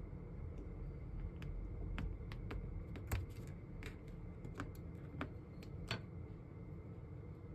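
A kitchen knife cutting a block of mochi into cubes on a thin plastic cutting board: sharp, irregular clicks and taps as the blade goes through and meets the board, the loudest about three seconds in.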